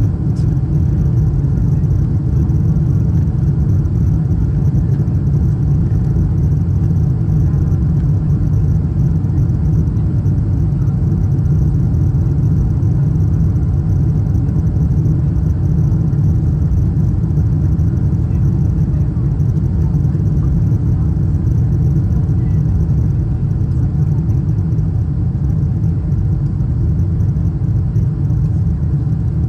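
Steady low rumble inside the cabin of a Boeing 747-8 Intercontinental airliner: engine and airflow noise, even throughout, with no rise or fall.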